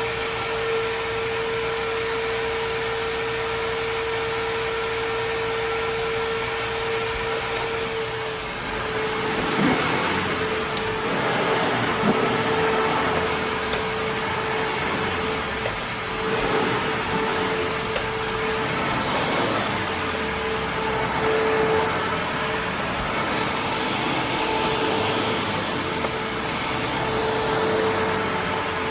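Hoover Turbopower 7500 self-propelled upright vacuum cleaner running, with a steady motor whine. About eight seconds in, a rougher rushing sound joins it, rising and falling in surges.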